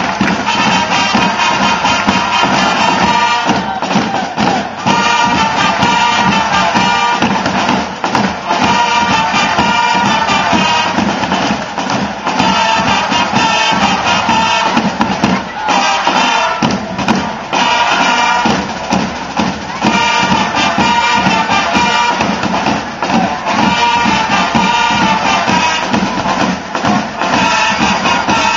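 Live band music with percussion over a steady, held drone-like tone, playing continuously.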